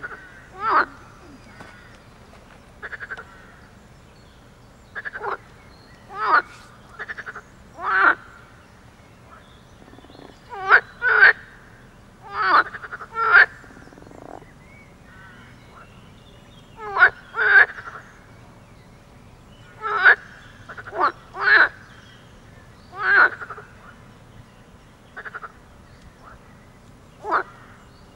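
Water frogs croaking in a pond chorus: short croaks, often two in quick succession, with pauses of a second to a few seconds between calls.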